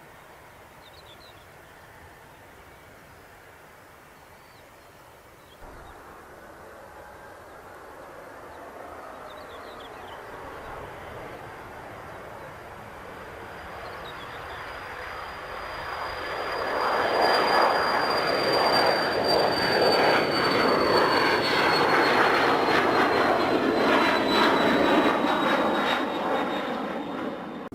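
Jet airliner passing close by. Its engine noise builds for about ten seconds and stays at its loudest for roughly ten more, with a high fan whine that slowly falls in pitch, then fades quickly near the end.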